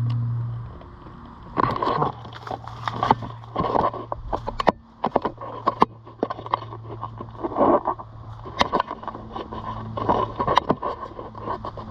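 Footsteps crunching irregularly on dry grass, leaves and gravel, with a steady low hum underneath.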